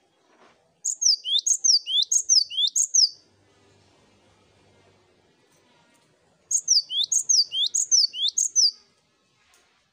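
Cinereous tit (gelatik batu) singing: two bouts of about two seconds each, with a pause between. Each bout repeats a two-part whistled note, a high falling note paired with a rising one, about two notes a second.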